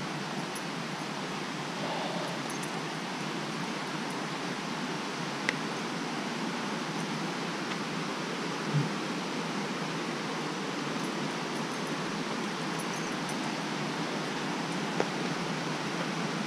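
Steady rushing of a river and its waterfall, an even hiss of water with a few faint taps over it.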